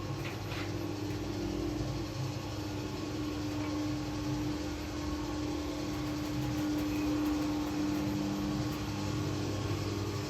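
Small passenger lift car travelling down, its drive giving a steady hum with a constant mid-pitched tone.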